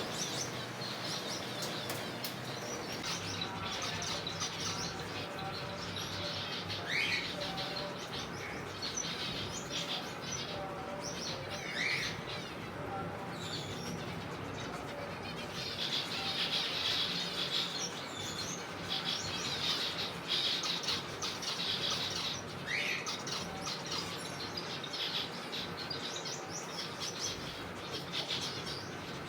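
A colony of zebra finches calling in an aviary: many short chirps overlapping one another, with a few louder rising calls standing out now and then.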